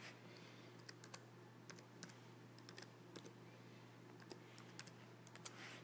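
Typing on a computer keyboard: faint, irregular key clicks over a steady low hum.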